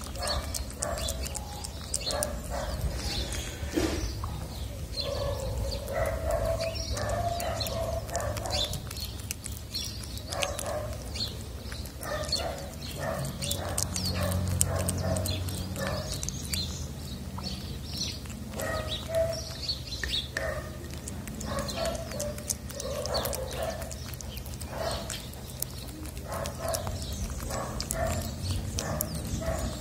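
Tabby cat eating wet cat food at close range: a steady, irregular run of wet chewing clicks and lip smacks. A low rumble sits underneath.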